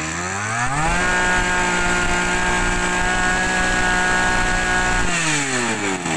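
Komatsu Zenoah 232 two-stroke brush-cutter engine revved up from idle. It climbs to high speed within about a second, holds there steadily for about four seconds, then drops back to idle near the end. The seller says it revs very fast.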